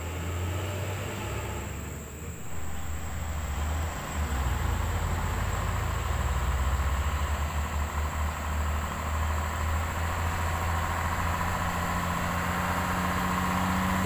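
Heavy cargo truck's diesel engine running as the loaded truck comes up the road towards the camera, a low rumble that grows louder about four seconds in and then holds steady, with a thin whine joining in the second half.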